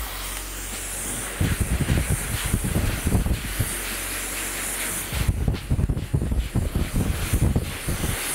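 Handheld hair dryer blowing steadily with a hissing rush of air. Gusty low rumbling comes and goes in two stretches, starting about a second and a half in and again about five seconds in.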